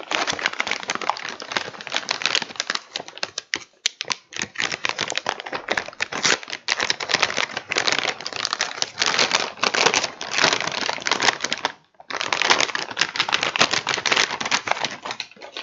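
Plastic packaging crinkling and rustling in rapid, irregular crackles as a graphics card is unwrapped and lifted out of its box, with brief pauses about four seconds in and again about twelve seconds in.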